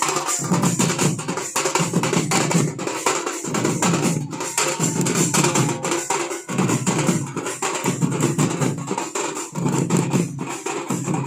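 Gond tribal baja, a traditional drum band, playing a fast, dense drumming rhythm in repeating phrases.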